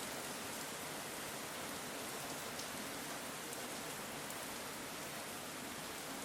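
Steady rain falling on the ground, an even hiss with fine drop patter throughout.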